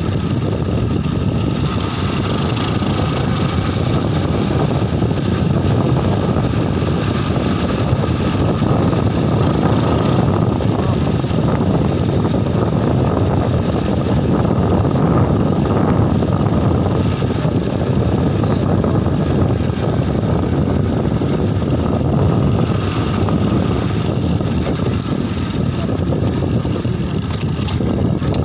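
Rusi motorcycle engine running under way at about 25–35 km/h in fourth gear, with wind buffeting the microphone. The bike is in third gear and slowing by the end.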